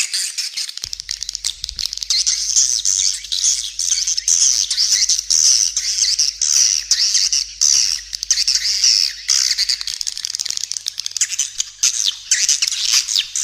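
Swiftlet calling sound: a dense, continuous chorus of high, rapid swiftlet twittering and chirping, a lure recording of the kind played from a swiftlet house to draw the birds in.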